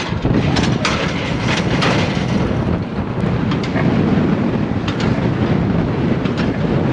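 Tractor-driven large square baler running, a steady heavy mechanical rumble with irregular clanking knocks from the machine.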